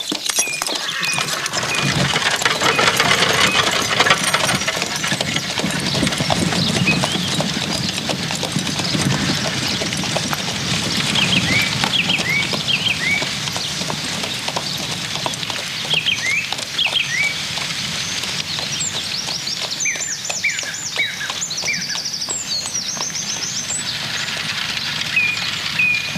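Horse hooves clip-clopping as a horse-drawn carriage moves along. Birds chirp over it, more often in the second half.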